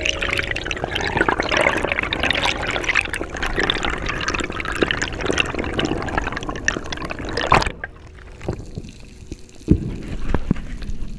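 Water splashing and bubbling close by, a dense crackling wash of noise. About seven and a half seconds in it cuts off suddenly to a quieter, muffled sound with a few low thumps.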